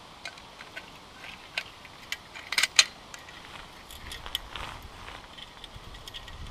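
Sven-Saw folding bow saw being unfolded and set up by hand: a series of light metal clicks and clinks from its aluminium frame and blade, the sharpest few a little before the middle.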